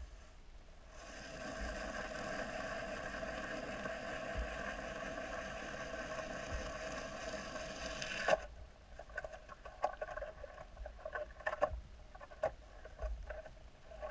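Steady motor hum heard underwater, made of several even tones. It starts about a second in and cuts off suddenly a little past the middle with a click, leaving scattered faint clicks and knocks.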